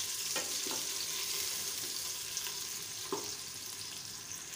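Sliced onions and whole spices sizzling in hot oil in an aluminium pressure cooker, a steady hiss. A wooden spoon knocks against the pot three times.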